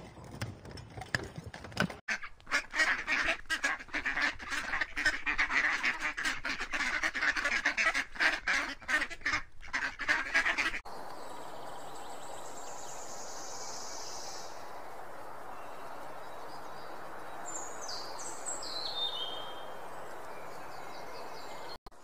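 A flock of waterfowl calling at once in a dense, rapid honking chatter, which cuts off abruptly about eleven seconds in. Then a steady outdoor hiss with a few high, falling bird chirps.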